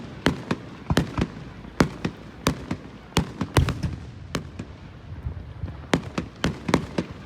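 Fireworks going off: an irregular run of sharp bangs and cracks, about two or three a second, with a deeper boom a little past halfway.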